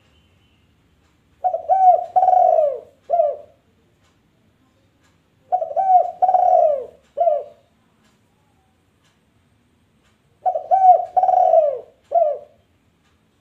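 A dove cooing in three matching phrases about four and a half seconds apart. Each phrase is a couple of short notes, a longer falling coo and a short closing note.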